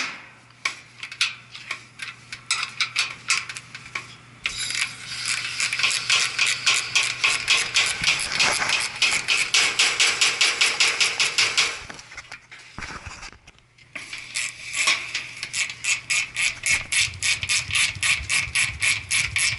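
Ratcheting wrench clicking in long, quick runs of about five to eight clicks a second, stopping briefly about two-thirds of the way through and then starting again. A low steady hum runs underneath.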